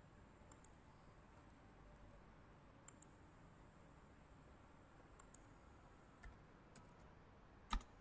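Faint, sparse clicks of a computer mouse and keyboard, about seven spread out, the loudest near the end, over a quiet room.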